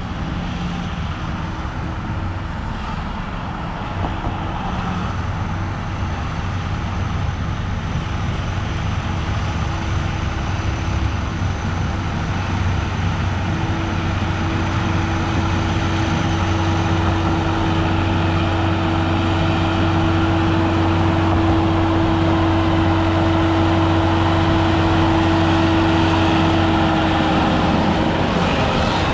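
Motor vehicle running steadily with road noise: a continuous low engine hum and a steady higher tone, the whole growing slightly louder toward the end.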